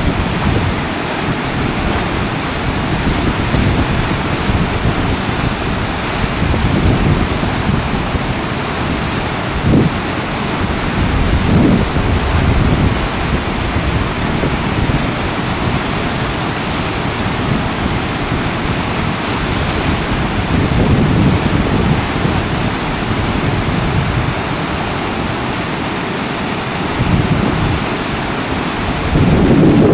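Steady rush of whitewater rapids breaking over a river standing wave, with wind buffeting the microphone in low, uneven gusts.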